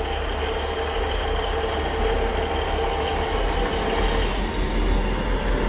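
Pair of Class 158 diesel multiple units standing with their underfloor diesel engines running: a steady drone with a held whine.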